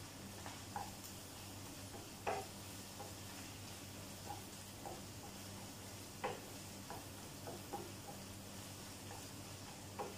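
Wooden spoon stirring ground meat in a frying pan, with a few short knocks of the spoon against the pan, the loudest about two seconds in and around six seconds in. Under it are a faint sizzle of the frying meat and a steady low hum.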